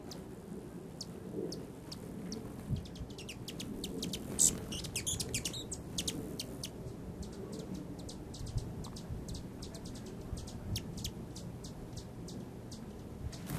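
Hummingbirds at a feeder giving sharp, high chip calls, with a quick run of chittering about four to five seconds in. A low steady murmur lies underneath.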